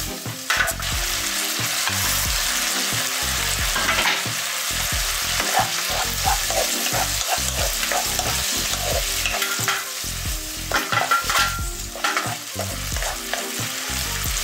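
Shrimp, chillies and garlic sizzling in a stone-coated nonstick wok over high heat, with a wooden spatula scraping and knocking against the pan as the stir-fry is tossed.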